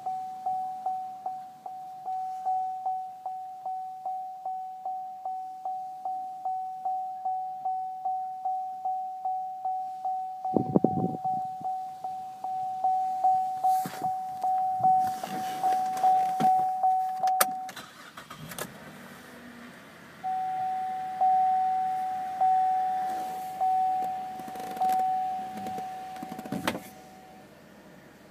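Saturn Outlook dashboard warning chime dinging repeatedly, about twice a second. It pauses for a couple of seconds past the middle, then resumes. A thump comes a little before the middle, with some clatter.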